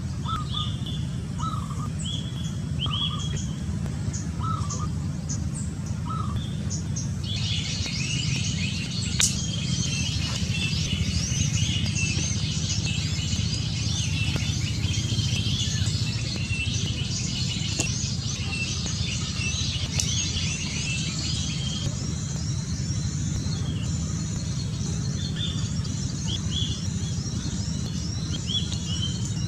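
Small birds chirping: short repeated chirps at first, then from about seven seconds a dense chattering of many birds that thins out after about twenty seconds, over a steady low rumble.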